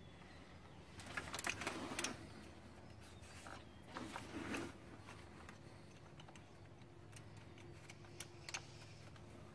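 Faint clicks and rustling of a plastic wiring-harness connector and wires being handled and pushed onto the engine's MAP sensor, with a cluster of clicks about a second in and another around four seconds in, over a low steady hum.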